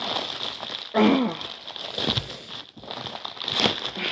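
Packaging being handled and unwrapped, crinkling and rustling with sharp crackles, with a brief vocal sound about a second in.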